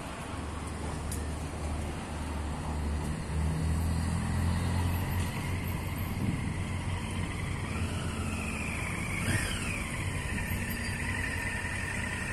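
Road traffic: a motor vehicle's engine rumbles past, loudest about four to five seconds in. Later a thin high whine rises and falls, and there is a single sharp tick.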